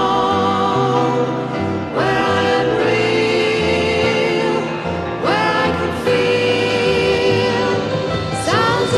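Music with singing voices holding long notes with vibrato over a steady bass line; new sung phrases slide up into their notes about two seconds in, about five seconds in, and near the end.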